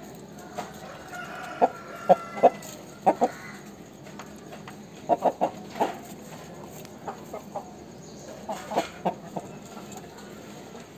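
Aseel chicken clucking: short, sharp clucks in three quick bunches, the first about a second and a half in, then around five seconds and near nine seconds.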